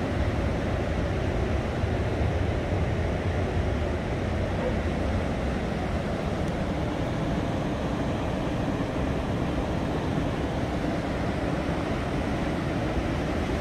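Pacific Ocean surf breaking on a sandy beach: a steady wash of noise with a deep rumble underneath.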